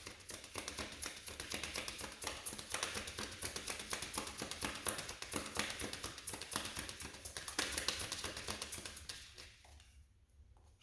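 A deck of reading cards being shuffled by hand: a rapid, dense run of soft clicks and taps that stops about nine and a half seconds in.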